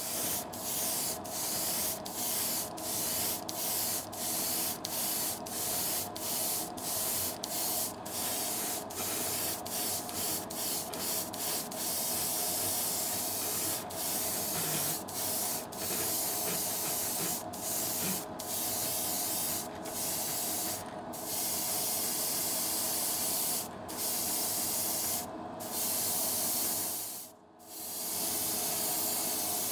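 0.3 mm airbrush (GSI Creos Procon Boy) spraying thinned gloss clear coat at about 20 PSI, a steady hiss broken by brief stops as the trigger is let off and pressed again: quick short pulses during the first dozen seconds, then longer passes with fewer breaks. A steady hum runs underneath.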